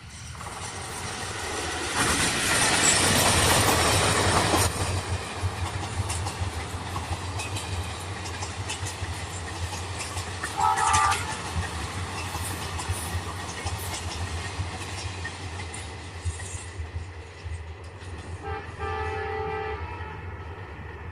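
Indian Railways passenger train running past, loudest a few seconds in, with the wheels clattering over the rail joints. Its horn sounds briefly about halfway through and again, a little longer, near the end.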